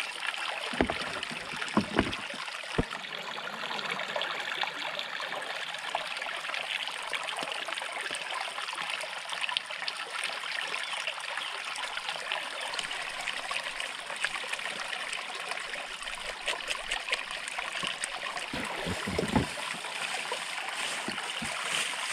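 Shallow river water flowing steadily, an even rushing and trickling. A few short knocks come in the first three seconds and again a few seconds before the end.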